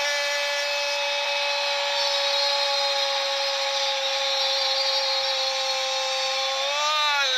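A football commentator's long, drawn-out shout of "gol": one held high note that sags slightly, then lifts and falls away near the end, over stadium crowd noise.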